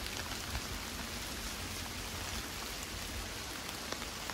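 Heavy rain falling steadily, with a few single drops tapping close by.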